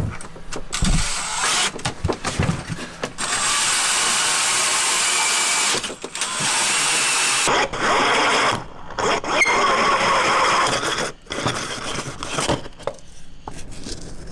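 Cordless drill driving a 3-inch hole saw through a fiberglass boat hull and fairing block. It cuts in stop-start runs, the longest two to three seconds each, and stops about eleven seconds in.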